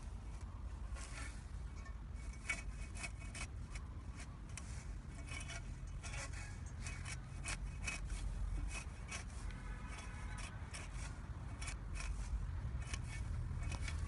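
Grass and weeds rustling and scraping in many short, irregular strokes as someone pushes along a narrow path through them, over a steady low rumble.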